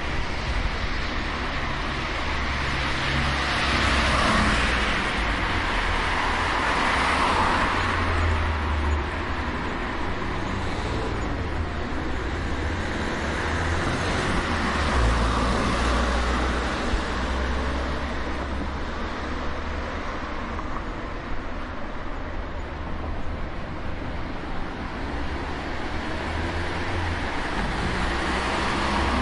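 Street traffic: a continuous hum of cars going by, with passing vehicles swelling and fading every few seconds over a low engine rumble.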